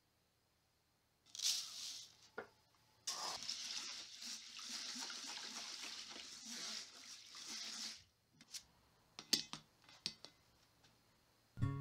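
Tap water running into a colander of rice while the grains are rubbed and washed by hand, a steady splashing hiss for about five seconds that then stops. Scattered drips and small knocks follow as the washed rice drains.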